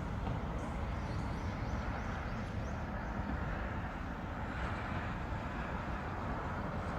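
Heavy machinery engine running steadily, a continuous low rumble, with faint high chirps in the first couple of seconds.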